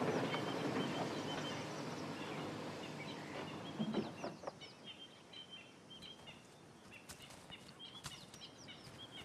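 Quiet bush ambience: a low rumble fades away over the first four seconds, then small birds give short, repeated high chirps with a few faint clicks.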